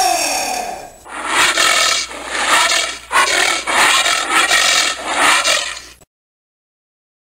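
Giant anteater calling: a drawn-out call that falls in pitch, then a run of about five shorter, rougher calls in quick succession. The sound cuts off abruptly about six seconds in.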